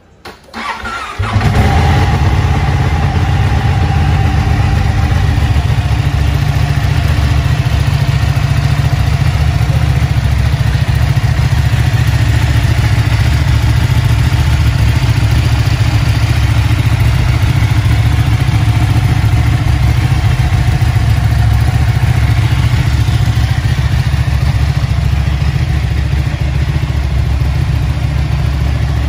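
Ducati Panigale 1199R's Superquadro L-twin is cranked on the starter and catches about a second in, then idles steadily. The clatter of its open dry clutch runs alongside the idle.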